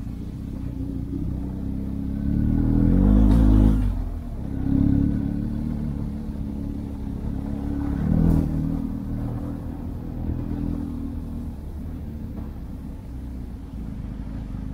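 Motorcycle engine running while riding, its note swelling louder about two to four seconds in and again briefly around eight seconds.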